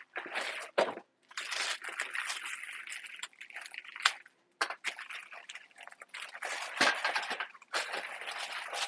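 Plastic bag and cardboard packaging of frozen breadsticks rustling and crinkling in stop-start bursts as they are handled, with a sharp knock just after four seconds in and a louder one about seven seconds in.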